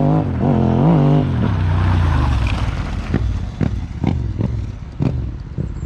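Yamaha Ténéré 700's 689 cc parallel-twin engine being ridden, revs blipping up and down in the first second and then running on under way. From about three seconds in, sharp knocks and clatter sound over it.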